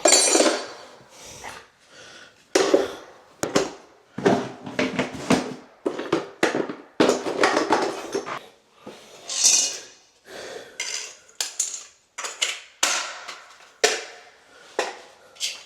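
Tools and hard objects being handled and set down: irregular clattering and rustling during cleanup after a faucet job.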